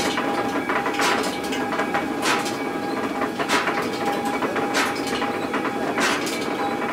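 Traditional stone grain mill running, grain feeding onto the turning millstones: a steady grinding rumble with a sharp wooden knock about every second and a quarter.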